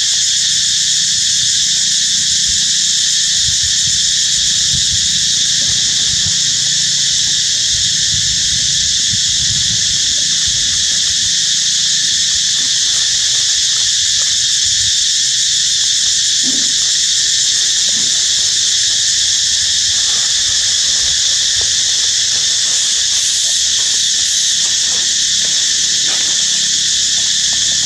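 Loud insect chorus: a continuous, steady high buzzing drone with a low rumble beneath it.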